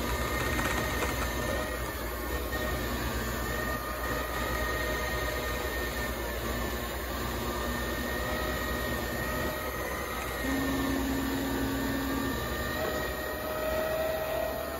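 Small motorised floor scrubber running with its scrub head turning on a concrete floor: a steady motor hum with a thin whine over it. A short low hum comes in about ten seconds in, and a higher steady tone near the end.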